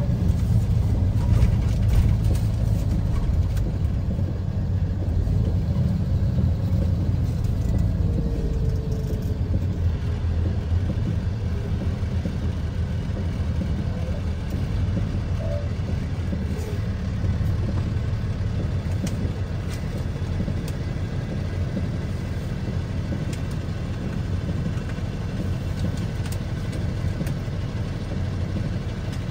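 Low, steady engine rumble and road noise heard from inside a vehicle's cab as it drives slowly, easing off a little as it slows.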